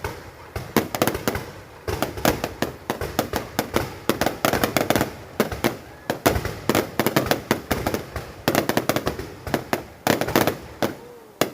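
Fireworks going off in a dense, irregular barrage of sharp bangs and crackling pops, with a short lull in the first two seconds and another near the end.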